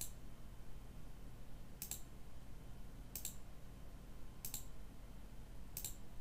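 Computer mouse button clicking five times, about one click every second and a third, over a faint steady low hum.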